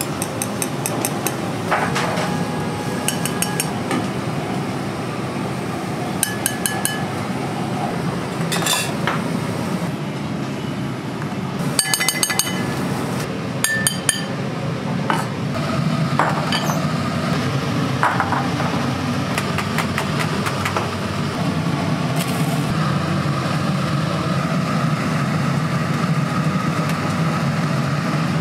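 Dishes and metal utensils clinking and rattling in short bursts, over a steady kitchen hum that grows louder about halfway through.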